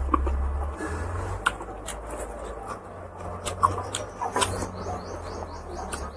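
Close-miked eating sounds of a person eating rice and pork curry by hand: chewing and wet mouth and lip clicks, a few of them sharp, over a low steady hum.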